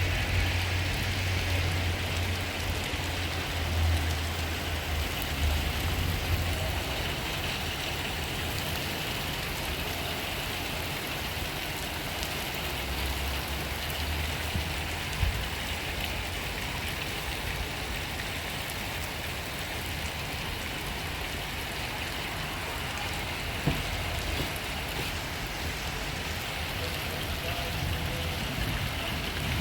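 Steady rain falling, an even hiss of drops on surfaces. A low rumble runs under it for the first several seconds and returns briefly around the middle, and there are a couple of sharp taps.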